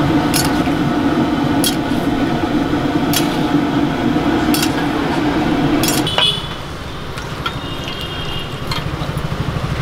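Oil bubbling in a black iron kadai as small fritters deep-fry, with a metal ladle clinking against the pan about every second and a half. About six seconds in the sound cuts to a quieter street background with a low pulsing hum.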